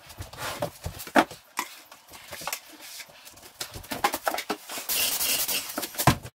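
Work-handling noises: knocks and clunks as a light fixture is handled and set back in place, with rustling, and a sharp knock about a second in and another near the end. About five seconds in comes a second or so of dense rustle.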